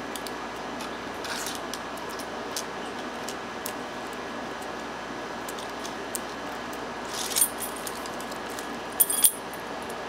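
Steel lock pick working the pin tumblers of a Ruger-branded Regal gun padlock, giving faint scattered clicks. About seven seconds in comes a brief metallic jingle, and near the end two sharp clicks as the lock comes open.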